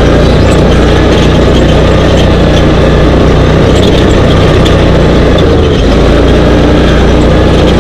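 Dune buggy engine running steadily at driving speed, very loud, heard from the buggy's own roll cage, with faint ticks and rattles over it.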